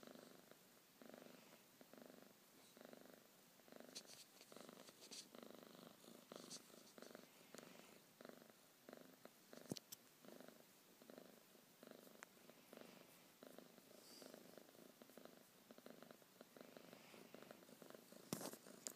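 A domestic cat purring quietly close up, in an even pulse of about two breaths a second. A couple of sharp clicks, one about halfway through and one near the end, are the loudest moments.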